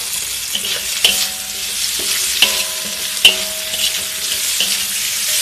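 Sliced sausage, meatballs and chicken sizzling in hot oil in an aluminium wok as they are stir-fried with a metal spatula. The spatula clangs against the wok about five times, and each clang leaves a short metallic ring; the loudest comes a little past the middle.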